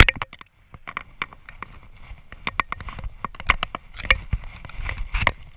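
Dummy launcher firing with one sharp bang at the very start, followed by irregular clicks and knocks from handling the launcher.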